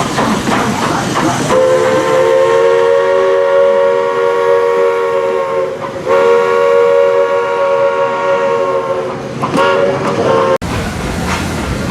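Walt Disney World Railroad steam locomotive's whistle sounding two long blasts and a short one, a chord of several steady tones. Before it, steam hiss and rail clatter; the sound cuts off abruptly after the short blast.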